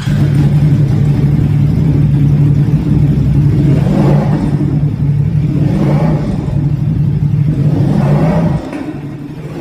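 CFMOTO 450SR's parallel-twin engine running, with three short revs of the throttle about two seconds apart, then settling lower near the end.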